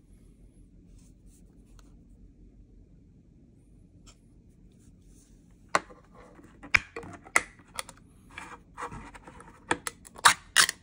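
A ring-pull food tin being opened: a few quiet seconds, then sharp clicks and knocks as the tab is levered up, scraping as the metal lid is peeled back, and more clicks near the end.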